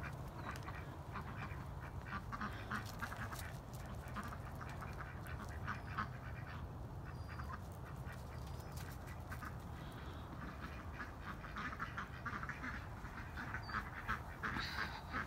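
Poultry giving short, scattered calls in clusters over a steady low hum.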